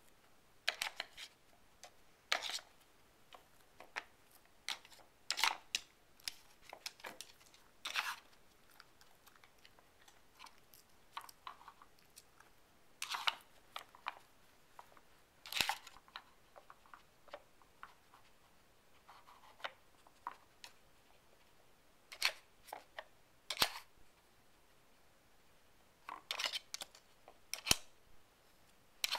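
Shiba Inu working a Dog Brick puzzle toy: short scrapes and clacks as she pushes the sliding blocks with her nose and paw, mixed with sniffing and crunching of small treats. The sounds come in scattered short bursts with quiet gaps between.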